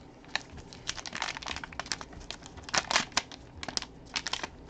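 Packaging crinkling and crackling in an irregular run of short rustles as the third hit, a graded trading card, is unwrapped.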